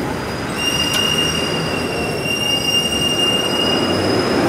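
A steady, high-pitched squeal lasting about three seconds, from the wheels of a loaded hand pallet jack being pushed across concrete, over a steady background din.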